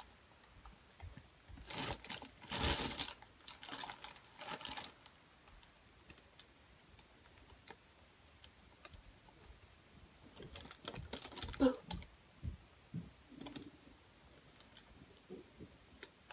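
A shopping bag rustling and crinkling in a few short bursts as a cat moves about in it, with scattered light clicks and taps. A brief low sliding sound comes about two-thirds of the way through.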